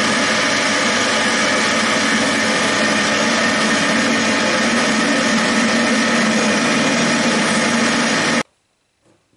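Metal lathe running with its chuck spinning while the tool turns a taper on the workpiece: a steady machining noise with several steady tones through it, which cuts off suddenly near the end.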